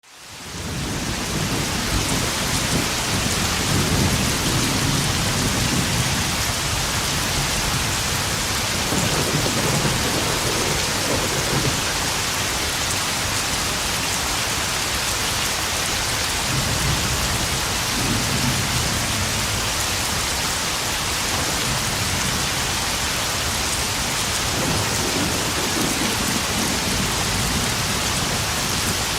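Spring thunderstorm: pouring rain drumming on puddles in a steady hiss, with low thunder rumbling about four times.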